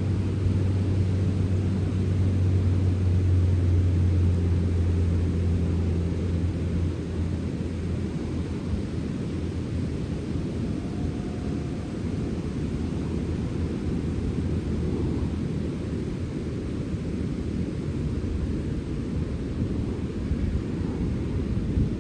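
Wind off the sea blowing steadily, heard as a low, rumbling noise; a low hum sits strongest in it for the first several seconds and then fades.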